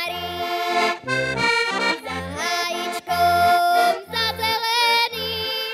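Heligónka, a Slovak diatonic button accordion, playing a folk tune: a reedy melody over a steady bass beat of about two notes a second.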